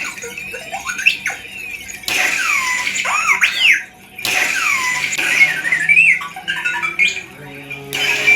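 Sabertrio Reaver lightsaber's CFX sound board playing an R2-D2-style soundfont: electronic beeps, warbles and whistling pitch glides, in loud spurts that start sharply about two, four and eight seconds in.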